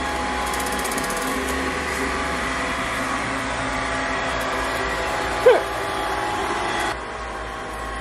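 Budget robot vacuum running on a hard wood floor, a steady, loud motor and brush whine. It drops away suddenly near the end. A brief vocal sound comes about five and a half seconds in.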